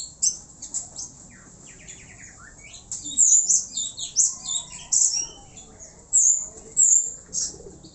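Birds chirping and squeaking: an irregular run of short, high-pitched calls, some sliding in pitch, busiest in the second half.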